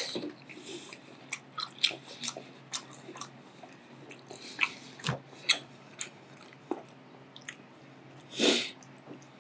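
A person chewing food close to the microphone, with irregular wet mouth clicks and lip smacks. Near the end there is one brief, louder burst of noise.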